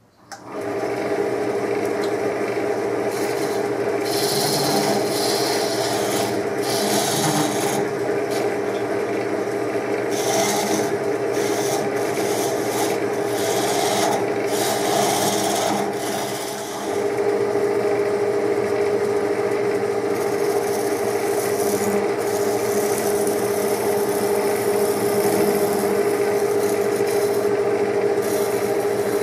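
Wood lathe running with a steady hum while a hand chisel cuts into the spinning wooden blank, the scraping of the cut coming and going in spells as the tool works. About halfway through the sound dips briefly, and after it the hum is stronger.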